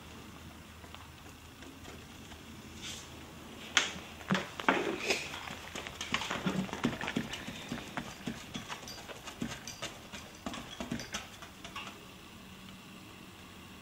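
Painting knife dabbing and tapping paint onto a stretched canvas: irregular light knocks and taps, several a second, from about four seconds in until near the end, the sharpest ones near the start.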